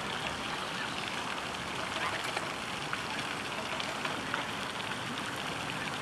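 Steady rushing hiss of outdoor background noise, with scattered faint short high chirps and clicks.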